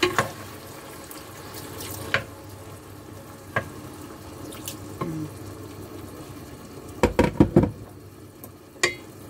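Wooden spoon stirring chicken pieces in freshly added water in a stone-coated pot, the liquid sloshing, with the spoon knocking against the pot now and then. A quick run of louder knocks comes about seven seconds in.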